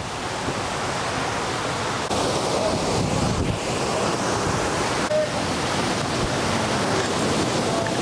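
Waterfall rushing steadily in full flow, the white water raging.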